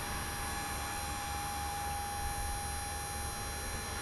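Steady mechanical hum from the truck-mounted attenuator truck as its arrow board is raised: a low pulsing rumble with a thin steady whine above it that fades after about two seconds.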